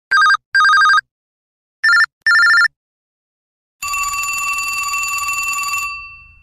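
LG T300 Cookie Lite mobile phone ringtones: two short double electronic rings like a telephone bell, then about a second later a longer, buzzier ringing tone lasting about two seconds that fades out near the end.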